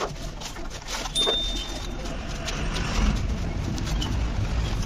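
Sandpaper rubbed by hand over a scooter's painted plastic body panel, a scratchy back-and-forth scraping with a few small knocks, over a steady low rumble.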